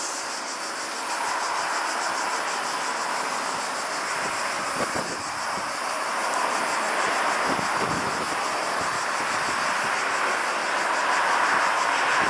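Distant jet engine noise from a four-engine Airbus A340-600 rolling out on the runway after touchdown. It is a steady wash of sound that grows louder near the end.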